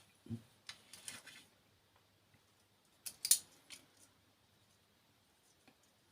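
Small tools and parts handled on a workbench: a soft knock, then two short bouts of scraping clicks, the louder one a little past three seconds in.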